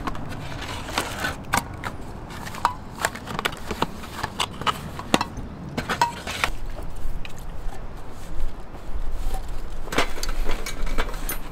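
Camping gear being handled in a storage crate: a plastic fuel bottle and a metal lantern moved about and set down, giving scattered light knocks, clicks and rustles.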